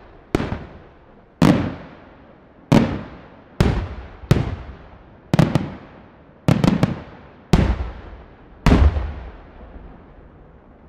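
Aerial firework shells bursting: about a dozen sharp bangs, roughly one a second, some in quick pairs and triples, each followed by a fading rumble of echo.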